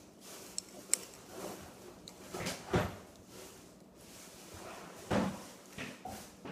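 Small plastic and metal Beyblade parts clicking and knocking as they are worked by hand, with heavier knocks about three seconds in and again about five seconds in, as a metal face bolt is pushed at and will not go in.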